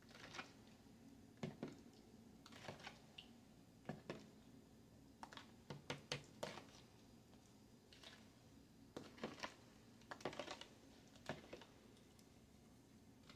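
Faint clicks and scrapes of a plastic spoon against the sides of a plastic pitcher as thick yogurt is stirred to dissolve sugar, coming in short bursts about every one to two seconds.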